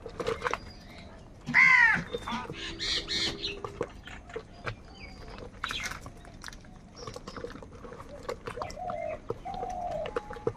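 Crows cawing: a loud harsh call about one and a half seconds in, followed by several more calls and lower drawn-out calls near the end, among scattered short clicks and taps.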